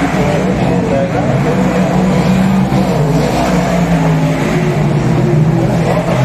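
Dirt-track speedway race car engines running hard around the oval: a loud, steady drone of several engines whose pitch wavers up and down as the cars go through the turns.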